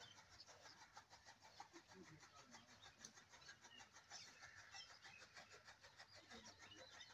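Near silence: faint outdoor farmyard ambience with small scattered clicks.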